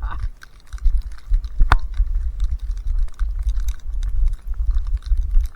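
Storm wind buffeting the microphone as a heavy low rumble, with rapid crackling clicks throughout and one sharper click about a second and a half in.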